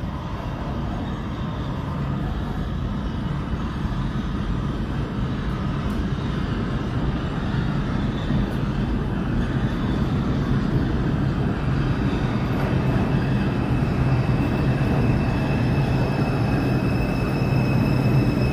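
An R142 subway train approaches along the tunnel track and pulls into the station, its rumble growing steadily louder. A thin high steady tone joins in over the last few seconds.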